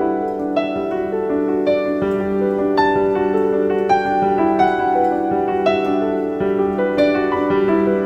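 Background piano music: a melody of single notes over held lower notes, at an even pace.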